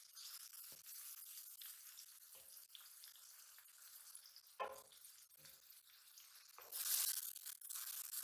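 Shing fish (stinging catfish) sizzling in hot oil in a metal karahi, with a few clinks and knocks from the steel bowl and pan. The sizzle gets louder near the end as the fish are stirred with a wooden spatula.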